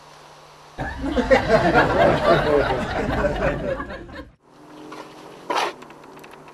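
A burst of laughter from a few people, about three and a half seconds long, over a heavy low rumble. It is followed by a low hum and a single sharp click.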